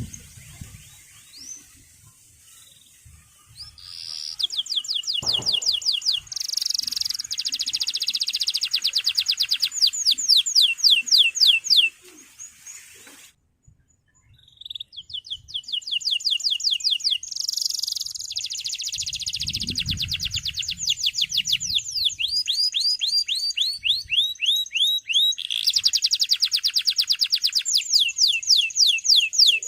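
Male domestic canary singing long, fast trills of quickly repeated falling notes, with a short break about halfway through.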